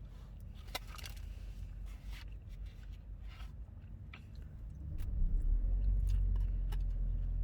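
Eating noises inside a car: a few clicks, scrapes and some chewing, then about five seconds in a low steady rumble sets in and stays.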